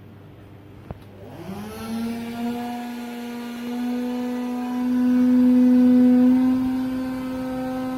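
A small electric motor spins up about a second in and then runs with a steady whine.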